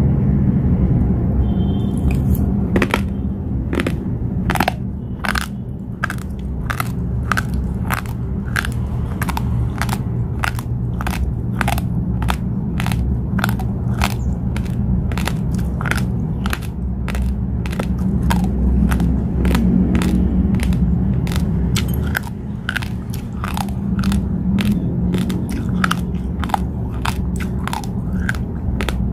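Close-up crunching of raw long-grain basmati rice being chewed, the hard grains cracking in sharp crunches about two a second over a steady low rumble.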